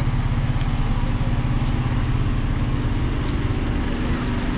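Street ambience dominated by a steady, low engine hum, with a few faint ticks and clicks over it.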